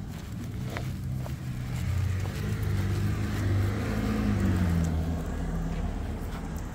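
A car driving past, growing louder to a peak about four seconds in, its engine pitch dropping as it goes by, then fading.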